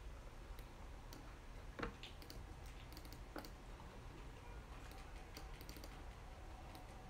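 Faint typing on a computer keyboard: scattered, irregular keystroke clicks, one a little louder about two seconds in.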